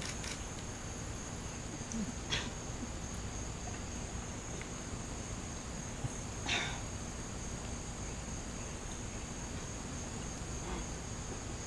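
Steady high-pitched chorus of insects such as crickets buzzing without a break, with a couple of soft short knocks about two seconds in and again about six and a half seconds in.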